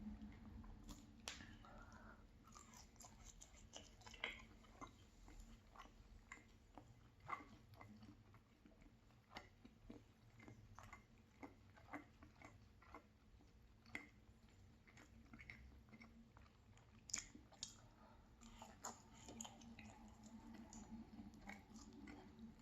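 Quiet chewing of a pan-fried cheese pancake close to the microphone, with scattered, irregular mouth clicks and smacks.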